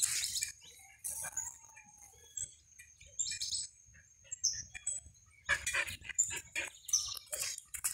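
Small birds chirping in short, high notes scattered through the clip. A run of rustling, clicking noises begins about halfway through.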